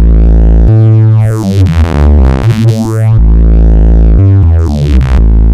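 Loud electronic free-tekno music: heavy synthesizer chords and bass with sweeping, filtered sounds.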